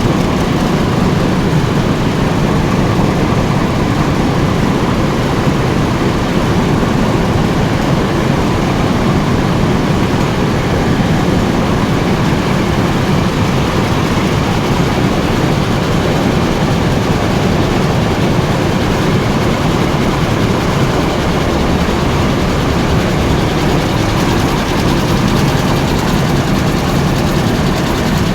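Saree repair machine running steadily, a loud, dense mechanical clatter that keeps an even level throughout.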